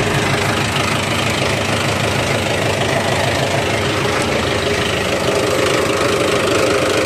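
MTZ tractor diesel engine running steadily, with no metallic rattle from the hood panels, which have just been packed with foam rubber.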